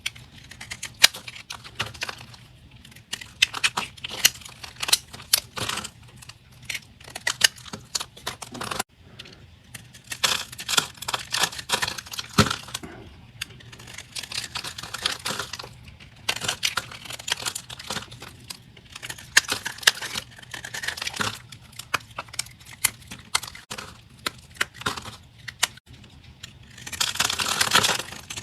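A blade cutting through a crunchy bar of soap: crisp crackling crunches and sharp snaps in repeated strokes with short pauses between them, growing denser near the end.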